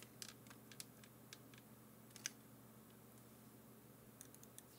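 Near silence with faint, scattered small clicks, the clearest about two seconds in: the tip of a thin precision screwdriver ticking against the plastic case and hooks of a portable cassette player as its circuit board is pried free.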